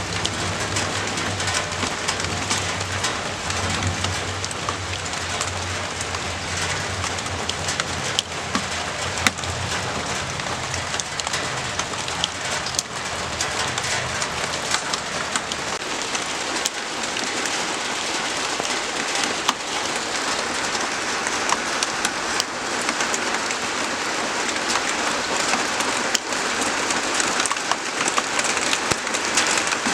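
Steady rain falling, with many individual drops hitting a surface. A low rumble runs underneath during the first half and fades out.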